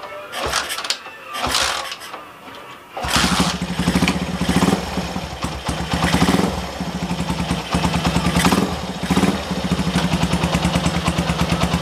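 An old Honda Mega Pro's air-cooled single-cylinder motorcycle engine being started: a few irregular noises, then it catches about three seconds in and runs with a steady pulsing beat. It is revved briefly a few times.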